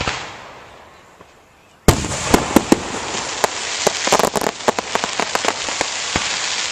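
Aerial fireworks: the crackle of one burst fades away, then about two seconds in a loud bang opens a dense stretch of crackling with many sharp pops.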